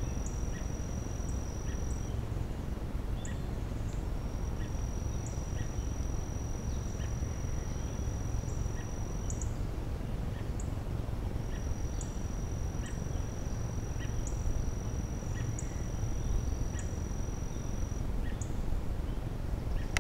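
Outdoor summer morning ambience: a high, steady insect trill that stops and restarts a few times, and short high bird chirps about once a second, over a constant low background rumble.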